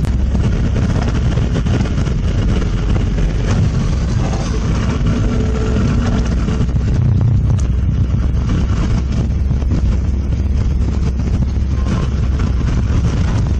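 A motor vehicle on the move: its engine runs steadily under a heavy low rumble of road and wind noise, with no change in pace.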